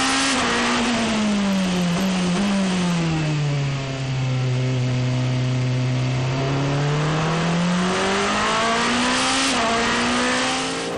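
In-car sound of the Lamborghini SC63 hypercar's twin-turbo V8. The engine note falls steadily as the car brakes and downshifts into a slow corner, with a short blip on a downshift. It holds low through the corner, then climbs again as the car accelerates out.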